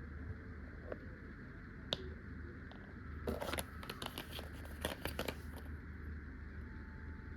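Packaging being handled and opened: a couple of sharp clicks, then a flurry of rustling, crinkling and tearing about three to five and a half seconds in.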